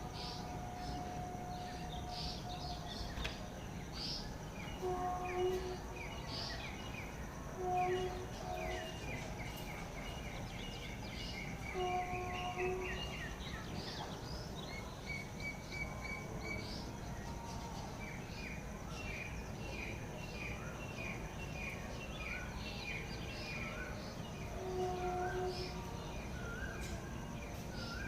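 Wild birds calling over one another: many short chirps and quick trills in runs, with a lower call coming about five times, over a steady high insect hum.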